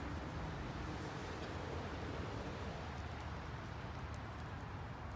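Steady outdoor background noise: an even low rumble with a few faint, scattered light ticks.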